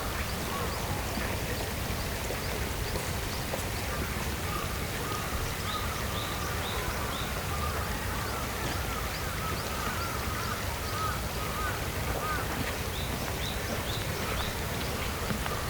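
Steady rushing noise of water under a chorus of birds calling: short high chirps in clusters, with a run of wavering lower calls in the middle.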